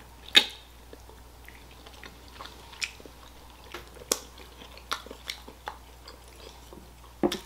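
Close-up mouth noises of someone sucking the marrow out of a pork bone: short wet smacks and clicks, scattered a second or so apart, the loudest about half a second in.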